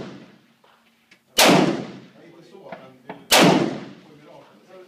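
Two rifle shots about two seconds apart, each with a long echoing tail, fired during a timed IPSC rifle stage.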